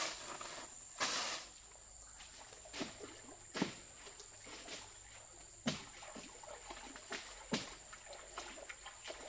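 A steady high-pitched insect drone, with a brief swishing rustle about a second in and scattered sharp knocks every second or two.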